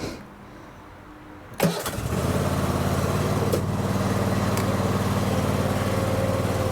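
Scag Freedom Z zero-turn mower's engine starting: a click and brief crank about a second and a half in, catching almost at once and then running steadily.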